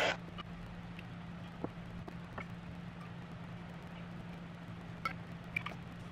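Faint, scattered light clicks and taps as small wires and a metal switch housing are handled during bench wiring, over a steady low electrical hum.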